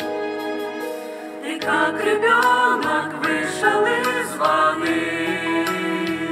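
A choir of men's and women's voices singing a hymn together, with long held notes.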